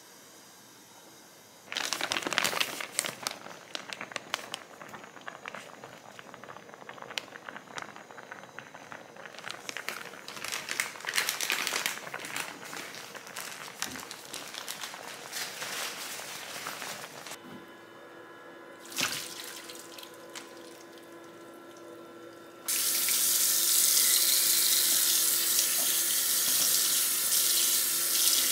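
Wide pulled noodles in a pot of boiling water, the water crackling and bubbling for much of the time. Near the end a kitchen tap runs steadily onto the noodles in a metal mesh strainer in the sink, which is the loudest part.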